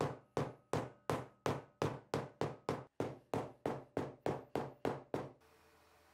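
Hammering: a steady series of about fifteen sharp blows, close to three a second, that stops abruptly near the end.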